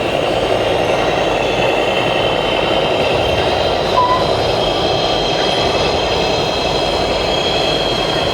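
High, shifting whines of RC construction models' electric motors and hydraulic pumps over a steady noisy background, with one short high chirp about four seconds in.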